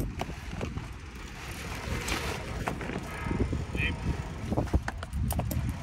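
Low, rumbling outdoor background noise with scattered light clicks and faint voices.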